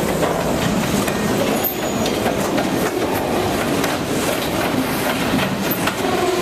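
Railroad cars rolling steadily past, with wheels clicking over rail joints and a few brief, faint wheel squeals.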